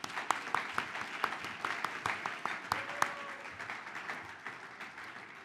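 Audience applauding, the clapping thinning and fading toward the end.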